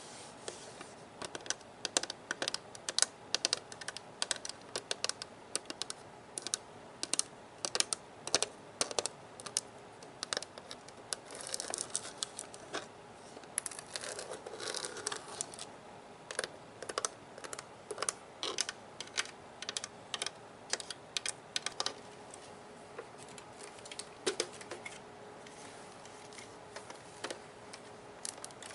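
Fingernails tapping on the hard plastic body of a Nerf toy gun, quick irregular clicks and taps, with a stretch of scratching on the plastic about halfway through.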